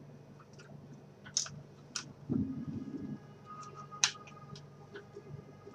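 A few scattered sharp clicks and taps, with a short muffled low rustle or bump about two and a half seconds in, over a faint steady low hum.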